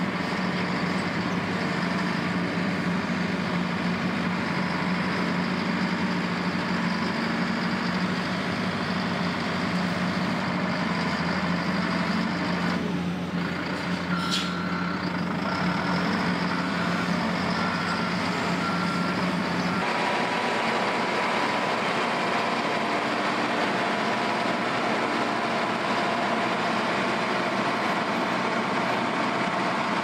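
Diesel engines of heavy military earthmoving machines, a backhoe loader and a road grader, running steadily. A back-up alarm beeps a few times a little past the middle, and the engine sound changes about two-thirds of the way through.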